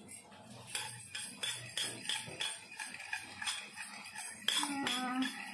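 A metal spoon clinking against a stainless steel bowl while beating eggs, in a steady rhythm of about three clinks a second.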